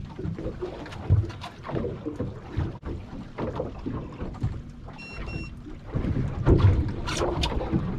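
Wind rumbling on the microphone with irregular knocks and water noise aboard a small fishing boat. Two short electronic beeps sound about five seconds in.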